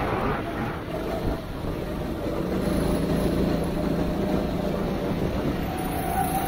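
Go-kart engine running under throttle, heard from on board under a steady rush of wind and wet-track noise. The engine note strengthens about two and a half seconds in and climbs in pitch near the end.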